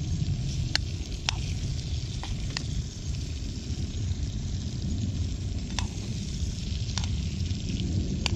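Barramundi fillets sizzling gently in butter in a small pan over a low campfire, with a spoon stirring in the pan and a few sharp clicks scattered through, over a steady low rumble.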